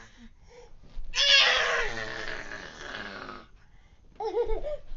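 A small child imitating a lion's roar: one long, rough, breathy vocal cry lasting about two seconds, followed near the end by a couple of short voiced sounds.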